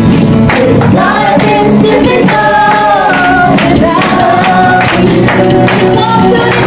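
A song sung by several voices together over steady musical accompaniment.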